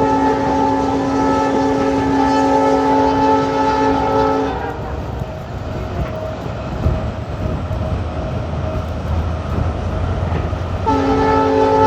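EMD WDP-4B diesel locomotive's multi-tone air horn blowing a long, steady chord that cuts off about four and a half seconds in. The train rumbles along the track until the horn sounds again near the end.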